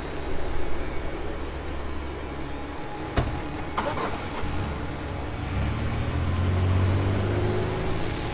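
Low rumbling drone of a horror film's sound design, with a sharp knock about three seconds in and a second one just under a second later, then a deeper rumble swelling up from about five and a half seconds.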